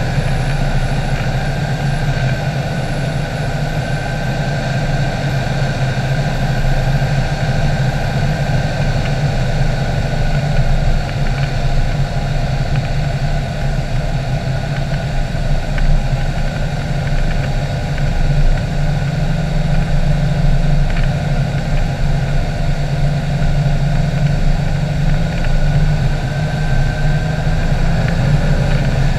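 Cessna 182's piston engine and propeller running steadily on final approach, heard from inside the cockpit.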